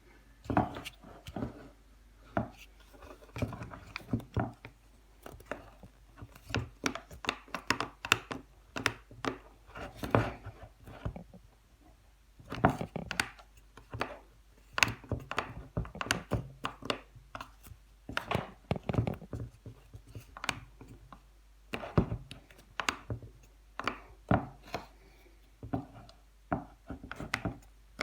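Irregular clicks, knocks and rattles of a Bosch PST 650 jigsaw being handled, its SDS blade clamp worked again and again to free a blade jammed in it.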